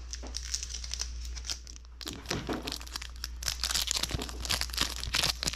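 Foil wrapper of a Magic: The Gathering draft booster pack crinkling and tearing open in the hands, the crackle growing denser and louder in the second half.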